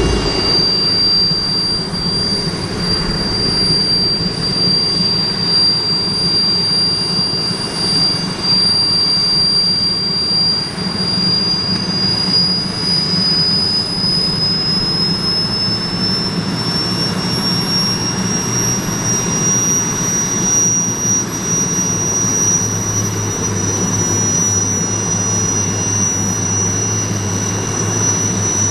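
Sud Aviation Alouette II helicopter's turbine engine starting up, a loud, high whine that climbs slowly in pitch as the engine spools up and then holds steady, over a low rumble.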